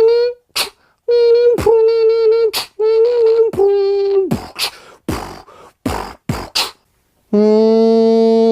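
Vocal beatboxing by one man: steady hummed notes cut by sharp mouth clicks, then a quick run of short hissing percussive bursts. About seven seconds in, after a brief pause, a loud steady buzzing tone starts.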